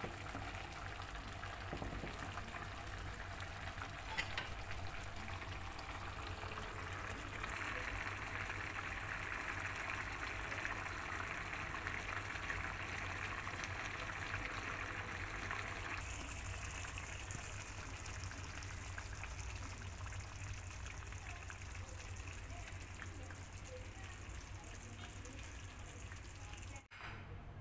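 Coconut-milk curry with smoked catfish simmering in a pan, a steady bubbling hiss over a low hum. The sound shifts abruptly about sixteen seconds in and drops out for a moment near the end.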